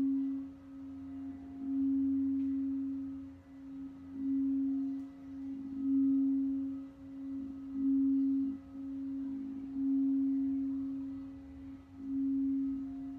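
Quartz crystal singing bowls played with a mallet: one pure, low steady tone that swells and fades about every two seconds, with faint higher overtones.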